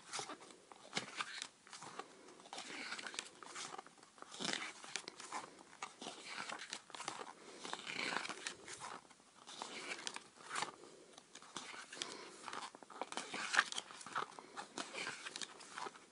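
Paper and plastic packaging crinkling and rustling as it is handled, with many small irregular clicks and taps.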